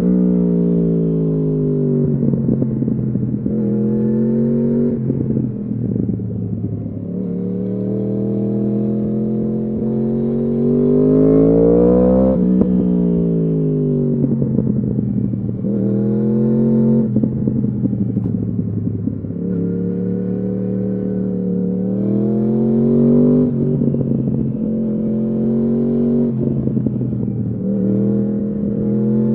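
2015 Yamaha R1's crossplane inline-four running through a full Akrapovič exhaust under riding load, revving up and dropping again and again as it accelerates and changes gear. The longest pull peaks about twelve seconds in, then the revs fall sharply.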